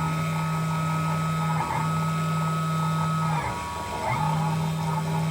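Genmitsu PROVerXL 6050 Plus CNC router running as it carves a test pattern into plywood: a steady motor hum with higher whining tones. The tones break off briefly about a second and a half in and again for most of a second near the 4-second mark as the machine changes moves.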